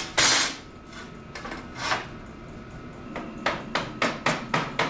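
Steel pieces clanking on a steel welding table as a frame is squared up: a loud clatter at the start, a few lighter knocks, then from about three and a half seconds in a quick run of sharp hammer taps on the steel, about four a second.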